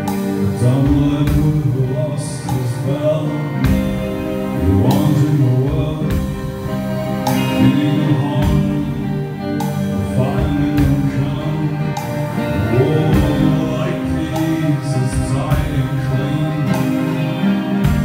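Live band playing a song: electric guitars and a drum kit with crashing cymbals, with a man singing over them.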